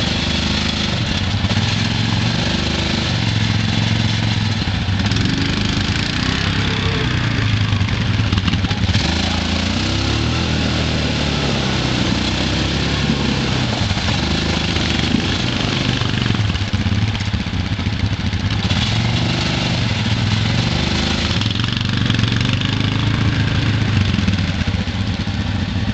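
ATV engines revving up and down as a stuck quad spins its wheels in mud and water, with the hiss and splash of churned mud and spray.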